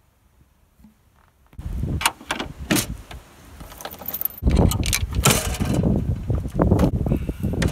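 Metal clicks and chain jangling as the tailgate of a Land Rover Series 2a is unlatched and let down on its chains, starting about a second and a half in and getting busier and louder partway through.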